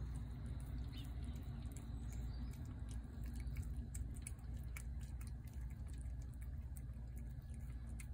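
A cat eating wet pâté cat food from a plate: a run of small, quick clicks and smacks of chewing and licking, over a low steady rumble.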